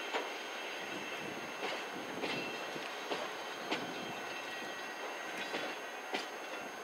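Wheels of a freight train of cement tank wagons clacking over rail joints as the last wagons roll away: scattered sharp clacks every half second to a second. Wind noise on the microphone runs under them.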